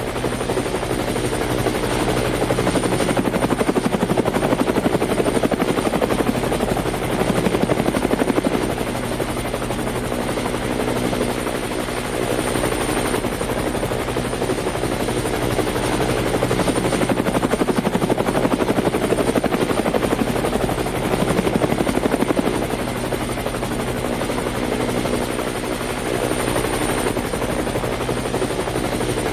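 Helicopter in flight, its rotor blades beating rapidly and steadily under a thin high whine, swelling slightly in loudness now and then.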